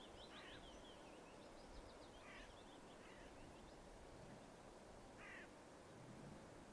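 Faint bird calls: a few short chirps and calls scattered over several seconds above a low, steady background hiss.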